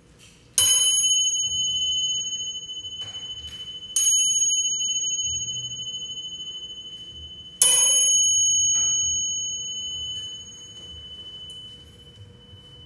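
A small handheld metal bell or chime struck with a thin beater three times, about three and a half seconds apart, each strike ringing with a high clear tone that fades slowly.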